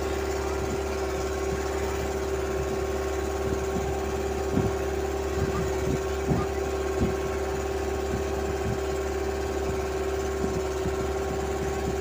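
A boat's engine running steadily at cruising speed, a constant drone with a strong fixed pitch. A few short thumps come in the middle.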